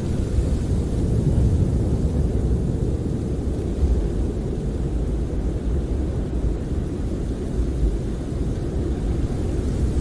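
Snowstorm wind buffeting a camper, heard from inside as a steady low rumble that swells and eases slightly with the gusts.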